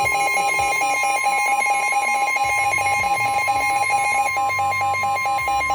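Weather radio alert: a steady tone of about 1 kHz, the NOAA Weather Radio warning alarm tone, sounds together with a rapid electronic beeping from the receiver. It signals an incoming severe thunderstorm warning broadcast.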